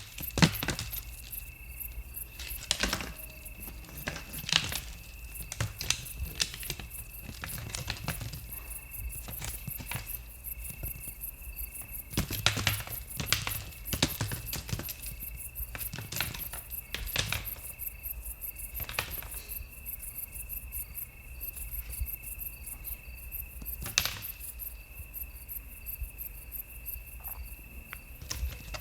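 Deer stags fighting, their antlers clashing in irregular clicks and knocks. Crickets chirp steadily throughout.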